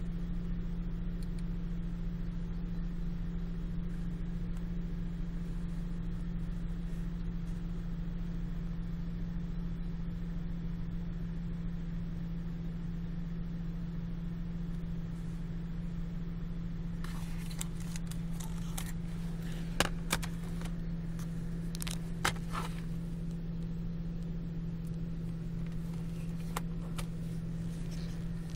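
Steady low mechanical hum, like a fan or appliance running. A little past halfway, scattered light clicks and taps join it, with a few sharper ones close together.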